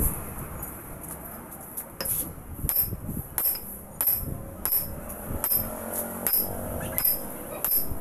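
Music with a steady percussion beat of crisp hits, roughly three every two seconds.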